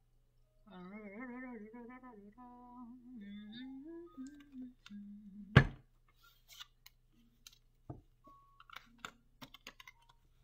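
A woman humming a short wavering tune for a few seconds, then a sharp knock about halfway through, followed by soft scattered clicks of a deck of tarot cards being handled and shuffled.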